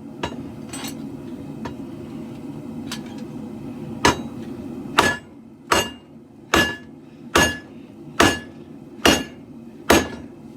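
Hand hammer forging leaf-spring steel for a katana blade on an anvil: a few light taps, then from about four seconds in a run of about eight ringing blows, a little under one a second. Under the blows runs the steady rush of a propane forge's burners.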